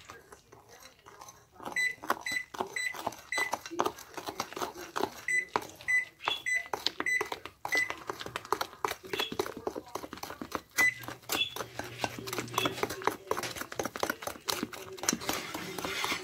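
A spoon stirring and beating thick cake batter in a ceramic bowl: a steady run of clinks against the bowl, many of them ringing with a short high ping.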